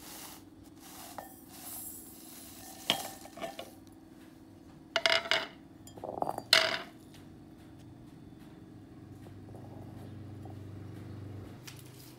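Ceramic dish knocking and scraping against a metal mortar as dried chillies and garlic cloves are tipped into it: a few clinks and short clatters, the loudest about five and six and a half seconds in.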